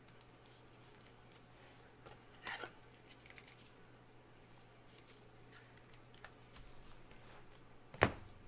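Faint rustling and crinkling of a clear plastic card sleeve handled in nitrile gloves, with a louder rustle about two and a half seconds in and one sharp knock near the end.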